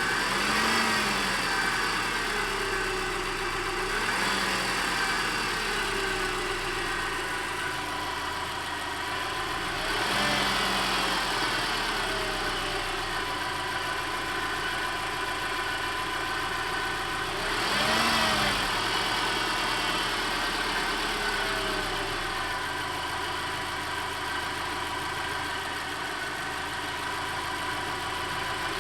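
Car engine idling, briefly revved several times, each rev rising and falling back to idle. It is being listened to for a possible knock that the owner is unsure of.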